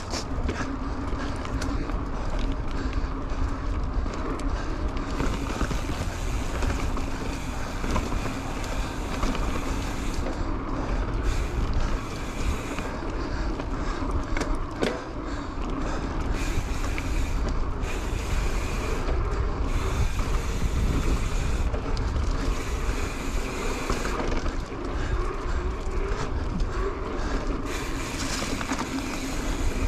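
Mountain bike riding along a dirt singletrack: wind buffeting the microphone over the tyres rolling on the trail, with a few faint knocks from the bike.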